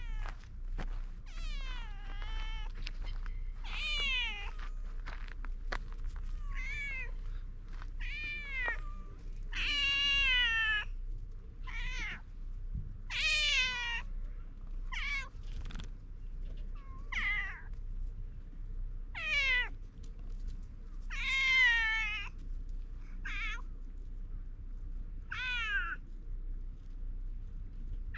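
A stray domestic cat meowing over and over as it comes up to a person, about one call every second or two, most calls sliding down in pitch.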